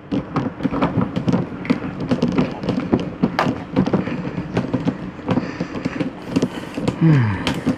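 Handling noise: scattered knocks, taps and clatter of parts being moved about, with a short falling tone about seven seconds in.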